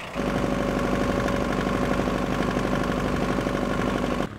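Small motor launch's engine running steadily under way, heard from aboard the open boat, an even fast chugging note. It starts suddenly just after the start and cuts off near the end.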